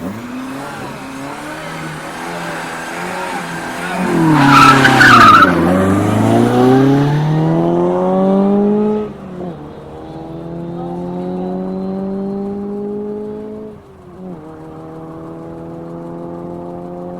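Rally car launching from the start line: the engine is held at steady revs, then about four seconds in the tyres spin with a loud burst of noise as it pulls away. The engine pitch then climbs through the gears, with upshifts about nine and fourteen seconds in.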